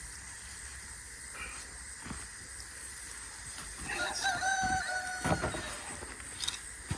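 A rooster crows once, a single drawn-out call starting about four seconds in, with a few low thumps around it.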